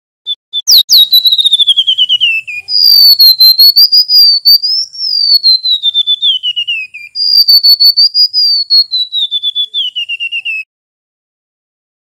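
Male golden-bellied gerygone (remetuk laut) singing three phrases of high, rapid whistled notes. Each phrase slides down in pitch; the second and third open on a longer, wavering whistle. The song stops shortly before the end.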